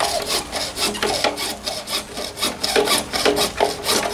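Hand hacksaw cutting lengthwise along a 10 cm PVC pipe: a steady back-and-forth rasp of the blade in the plastic, about three strokes a second.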